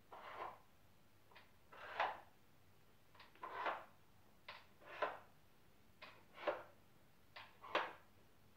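Wooden parts of a Dog Twister dog puzzle being handled: a series of short wooden clicks and brief sliding scrapes, about one every second and a half, as the pieces are moved while treats are loaded.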